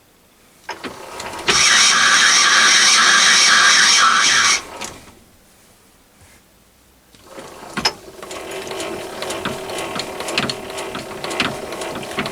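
Manual lathe working a screw-cutting pass: a loud, bright run for about three seconds that starts and stops abruptly. After a short pause the lathe runs again for about five seconds, with the gear train rattling and clicking.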